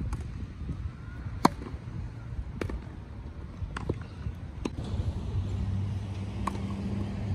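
Tennis rackets striking a ball back and forth in a rally, a sharp pop about every second, the loudest about a second and a half in. A low rumble lies underneath, and a low steady hum joins about five seconds in.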